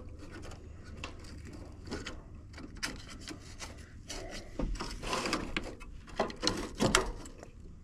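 Irregular clicks, taps and rustling scrapes of hands handling wiring and parts, busiest and loudest between about five and seven seconds in.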